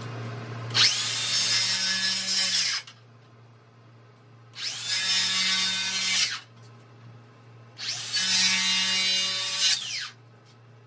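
DeWalt cordless circular saw making three short cuts into a wooden 2x4 stud, each starting with the blade spinning up and ending as it winds down. The cuts are slots sawn at an angle into a bowed stud to straighten it.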